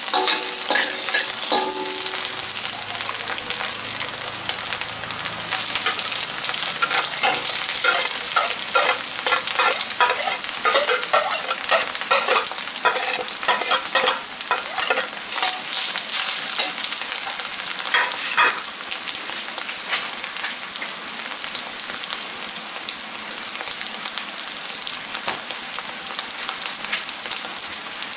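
Food sizzling in a hot metal wok while a metal spatula stirs and scrapes through frying garlic, shallots, chilli and egg, then white rice for fried rice. The spatula's scrapes and clacks come thick and fast through the middle, then ease off, leaving a steadier, quieter sizzle near the end.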